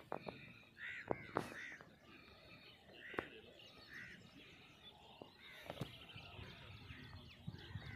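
Birds calling outdoors: a few short, harsh calls about a second in and again around three and four seconds, with fainter chirps later, over a low background hum of open country. A few sharp knocks come through now and then.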